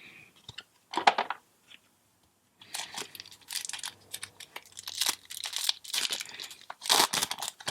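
Foil wrapper of a Magic: The Gathering booster pack being torn open and crinkled in the hands: a brief rustle about a second in, then a longer run of irregular crackling and tearing.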